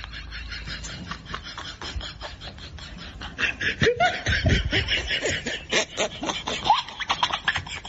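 A person laughing in rapid, repeated snickers, louder from about three and a half seconds in.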